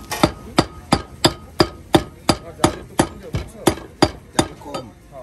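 Rhythmic chopping strokes on a board, about three a second, thirteen in all, stopping shortly before the end.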